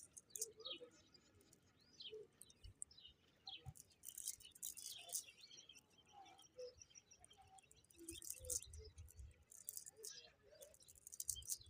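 Faint chirping and twittering of small birds, short high calls scattered throughout, with a few soft low thumps.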